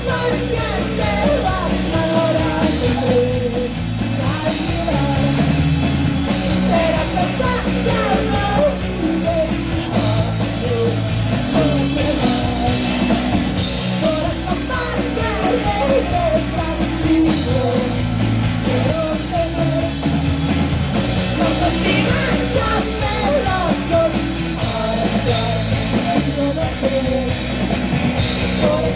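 Rock band playing live: electric guitar, bass and drums at a steady loud level, with a voice singing over them.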